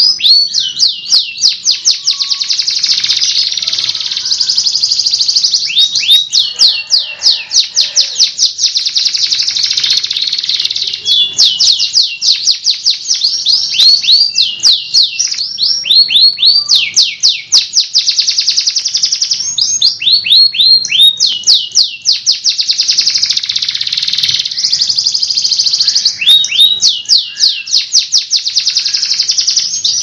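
Domestic canary singing vigorously: long rolling trills of very fast repeated notes, broken now and then by a short pause and a run of quick downward-sweeping notes before the next roll.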